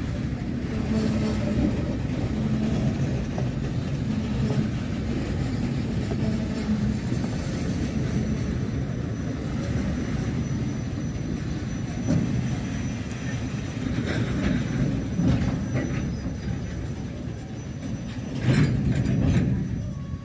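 Freight cars, a tank car and covered gondolas, rolling steadily past: a continuous low rumble of steel wheels on rail with occasional clacks, swelling louder near the end.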